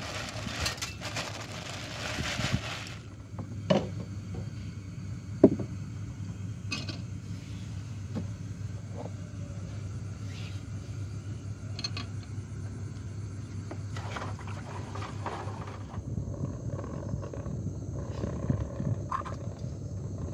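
A plastic bag rustling as rice is poured from it into a pot of water, for the first few seconds. Then a steady low rumble with a few sharp knocks.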